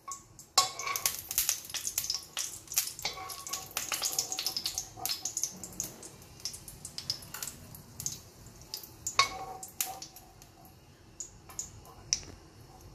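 Hot oil crackling and popping around whole dried red chillies in a wok, with a steel spoon clicking against the pan as the chillies are lifted out. The crackling is dense for about the first five seconds and then thins out.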